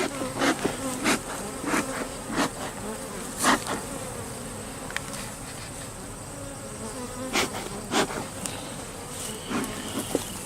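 Honey bees buzzing in a steady hum around an opened hive, with many short, louder swells. The bees are agitated by the inspection.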